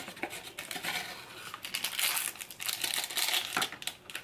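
Crinkling and rustling of a cup of instant noodles being opened: the lid peeled back and the plastic seasoning sachets handled, with many small clicks and a louder stretch of crackling in the middle.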